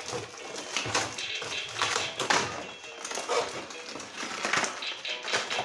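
Cardboard and plastic toy packaging being torn and pulled apart by hand: an irregular run of rips, crinkles and taps.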